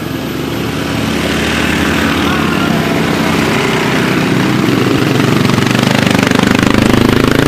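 Small motorcycle and scooter engines running steadily, growing gradually louder.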